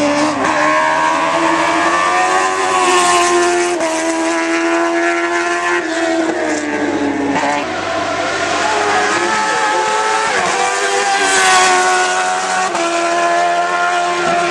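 Sports-prototype race car engine running at high revs on a hillclimb, its pitch climbing and dropping sharply several times as the driver shifts gears and lifts for the bends.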